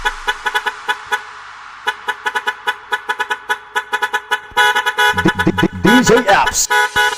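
Electronic dance remix built on a chopped truck horn sample: short horn blasts repeat in a fast, stuttering rhythm. The track grows louder about four and a half seconds in, with sliding pitch bends near the end.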